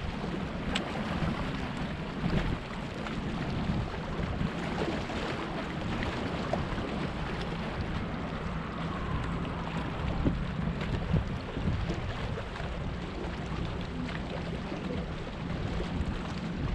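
Wind buffeting the microphone and water lapping against a kayak, with a few faint knocks.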